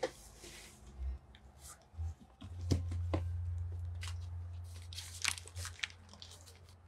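Rustling and crinkling of items being handled in a cardboard box, with scattered sharp clicks and taps; a low hum sits underneath through the middle.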